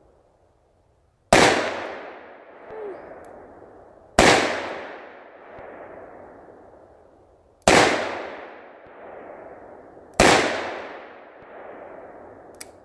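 Four shots from a Ruger .357 Magnum revolver, a few seconds apart, each loud crack trailing off in a long echo.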